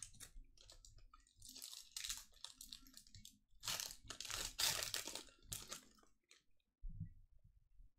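Foil wrapper of a trading-card pack crinkling and being torn open by hand, in two rustling spells, the second and louder one in the middle. A soft low thump comes near the end.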